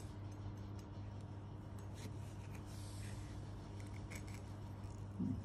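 Kitchen knife cutting into an avocado's skin: faint scraping with a few light ticks.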